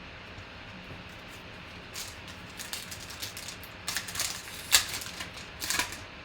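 Trading cards and their foil pack wrappers being handled: a run of crisp crackles and clicks that starts about two seconds in, with the sharpest snap a little before the end.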